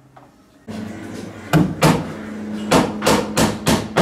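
Hammer driving nails into wooden ceiling boards: about eight sharp strikes starting about a second and a half in, coming faster near the end, over a steady low hum that starts just before them.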